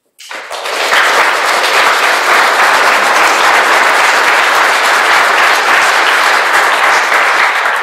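Audience applauding: loud, dense clapping that swells up within about a second and dies away near the end.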